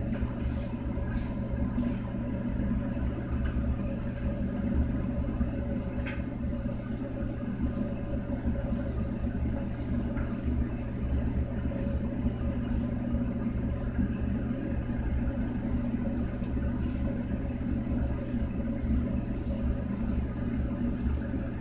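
A wooden spatula stirring and scraping pork in a frying pan, heard as faint irregular scrapes over a steady low hum.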